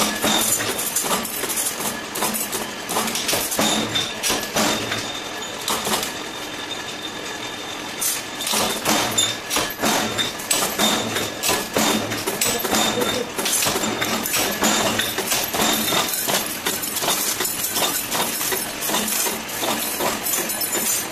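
10-ton mechanical power press running, with rapid repeated metal clanks and clinks of the ram stamping parts. The strikes stop for about two seconds some six seconds in, leaving only the steady running of the machine, then start again.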